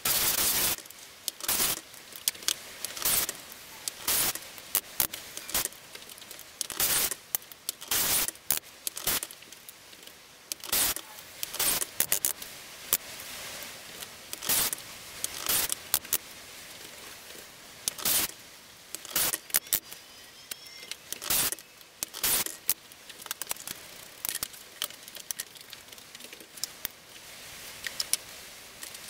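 Handling sounds from small plywood gussets and a plastic pocket-hole jig: an irregular string of short clicks, taps and rattles as the pieces are set in the jig, clamped, knocked out and laid on the bench.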